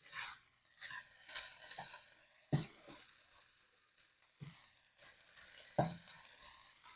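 Diced chicken breast frying in a skillet with a faint steady sizzle, while a utensil knocks and scrapes against the pan a few times as the pieces are stirred.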